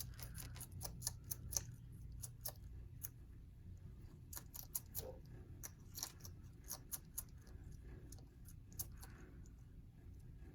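Bearded dragon chewing dried-worm croutons and salad, making quick, irregular crisp crunches and clicks in clusters.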